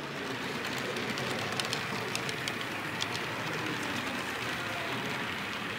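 Model train running along the layout track, with a scattering of sharp clicks from about one to three seconds in over a steady background hiss.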